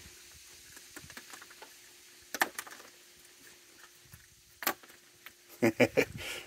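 Peanuts tossed onto a wooden deck, landing with sharp clicks. There are a few light ticks, single knocks about two and a half and nearly five seconds in, and a quick clatter of several near the end. A faint steady hum sits underneath.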